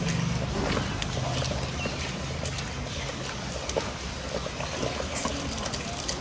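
Wooden masher (ghotna) churning thick cooked mustard-greens saag in a pot, with wet squelching and sloshing.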